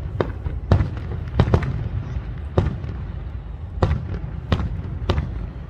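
Aerial firework shells bursting overhead: a string of sharp bangs, about eight in under six seconds at uneven intervals, over a steady low rumble.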